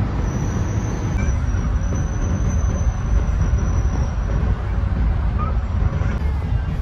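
Steady low rumble of outdoor background noise, with a faint thin high whine over it for the first four seconds or so.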